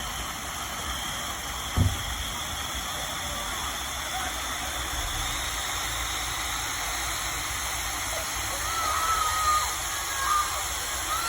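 Fireworks going off: a steady hiss, with a single low thump about two seconds in and a faint rising whistle after it.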